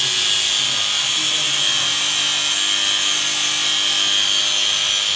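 Handheld power tool with an abrasive wheel grinding through metal, throwing sparks: a steady high-pitched whine over a continuous grinding hiss.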